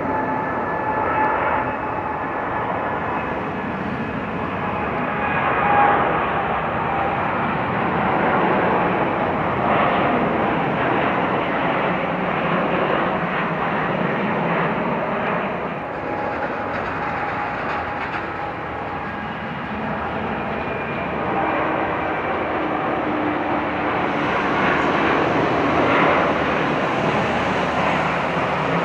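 Boeing 787-9 airliner's Rolls-Royce Trent 1000 turbofans at takeoff thrust: a steady jet rushing noise with faint whining tones as it rolls down the runway and climbs away.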